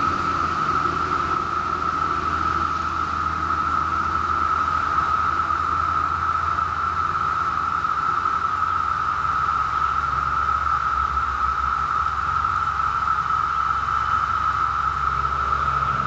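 Chorus of periodical cicadas: a steady, unbroken high drone from many calling males, with a faint low hum underneath.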